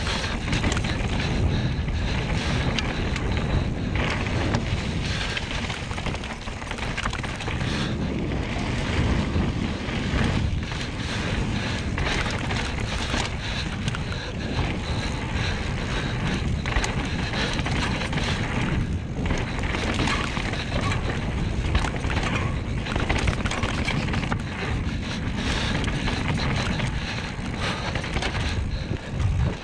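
Mountain bike rolling fast down a dirt trail: steady wind rushing over the action camera's microphone, mixed with the rumble of the tyres on the dirt.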